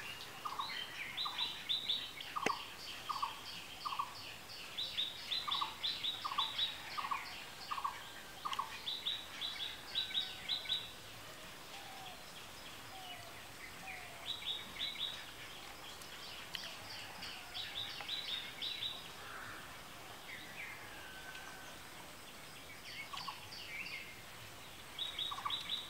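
Birds calling: runs of quick, sharp repeated notes that come in bursts every few seconds, with a lower-pitched run of notes through the first several seconds.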